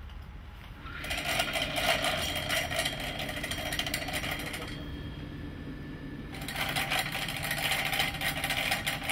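Moped's small two-stroke engine being tried, giving two stretches of rapid, rough rattling a few seconds each with a short lull between; the engine has a seized piston, as the mechanic diagnoses.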